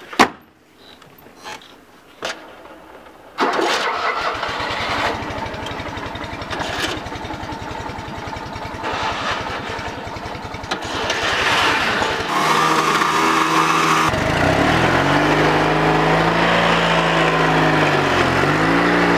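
A sharp knock at the start, then a small convertible's engine starts about three and a half seconds in and runs with a quick, even beat. After about twelve seconds the engine note climbs and falls in pitch as the car pulls away.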